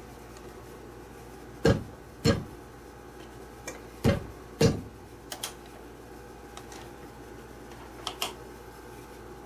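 Hand patting the turned face of a large maple bowl blank on a stopped lathe: two pairs of sharp slaps, the second pair about two seconds after the first, then a few fainter taps.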